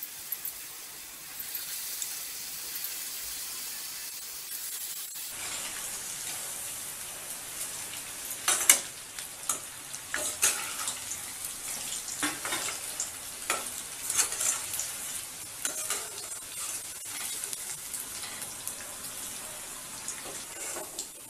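Batter-coated broccoli florets deep-frying in hot oil in a steel kadai: a steady sizzling hiss. From about eight seconds in come scattered sharp clinks and scrapes of a metal slotted spoon against the pan.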